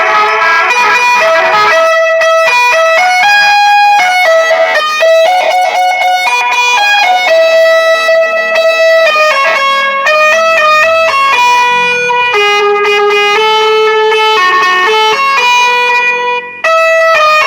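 Electronic telolet car horn playing a long melody, one buzzy held note after another, with a brief break near the end.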